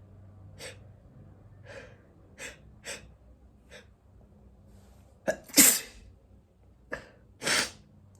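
A person sneezing twice, about five and a half and seven and a half seconds in, each sneeze set off by a sharp catching inhale. The sneezes follow a run of short, quick breaths as the sneeze builds; the first sneeze is the louder.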